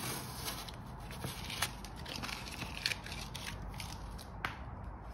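Green painter's tape being peeled off a car's painted fender and crumpled: a faint tearing and crinkling with a few sharp ticks.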